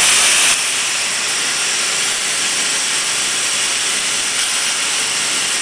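Steady, loud hiss of rushing air from industrial machinery around a foam-block mould, starting abruptly and a little brighter for the first half second.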